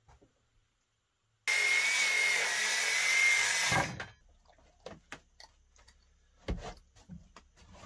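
Cordless circular saw cutting through a wooden board with a steady motor whine for about two seconds, then stopping abruptly. Afterwards a few light knocks and one heavier thump as the boards are handled.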